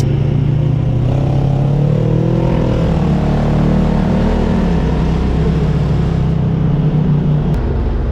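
Side-by-side UTV engine running under way, its pitch rising and falling with the throttle.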